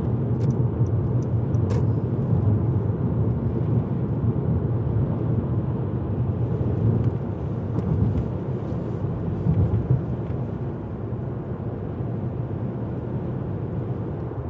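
Steady low rumble of a car in motion, heard inside the cabin: engine and tyre noise on a snowy road. A few faint clicks in the first couple of seconds.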